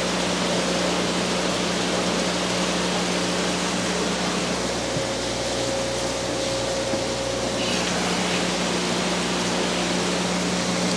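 Steady hum and rush of a fish room's running equipment, pumps and aeration, with an even low drone that does not change.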